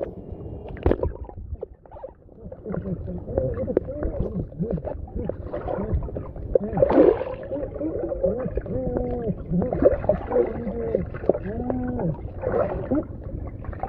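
Pool water heard underwater through a submerged camera: a muffled churning of water from legs doing the eggbeater ('bicycle') treading kick, with warbling, wavering muffled tones and scattered knocks throughout.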